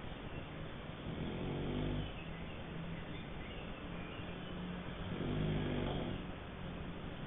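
Snoring: two snores about four seconds apart, over a steady low hum.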